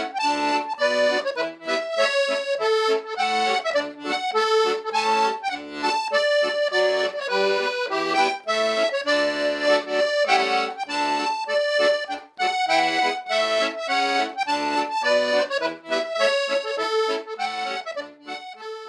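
Background accordion music: a quick melody of short notes, with no drums.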